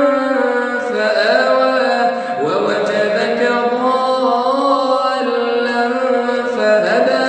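A man's voice chanting Quran recitation in a melodic, drawn-out style, holding long notes that slide up and down between pitches.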